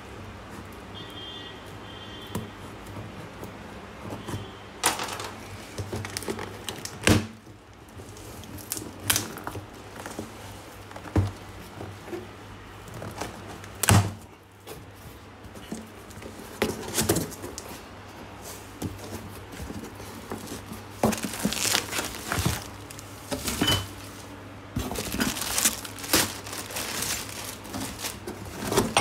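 Cardboard delivery box being opened: a knife slitting the packing tape, tape tearing and the cardboard flaps crinkling and knocking. There are scattered sharp knocks throughout, and a busier stretch of crinkling and tearing near the end as the flaps are pulled back.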